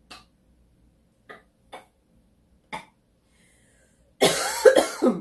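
A few short crunches of chewing a puffed cheese snack, then about four seconds in a woman coughs hard for about a second, a reaction to the spicy heat.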